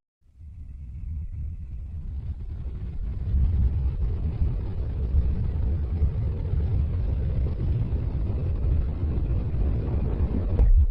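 Low, steady rumbling noise with no clear pitch, fading in over the first few seconds and cutting off abruptly near the end.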